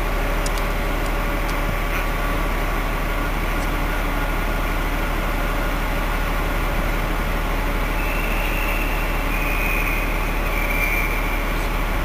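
Diesel engine of an HST (InterCity 125) Class 43 power car running as the train approaches slowly, a steady heavy drone. A high whine comes in about eight seconds in and fades about three seconds later.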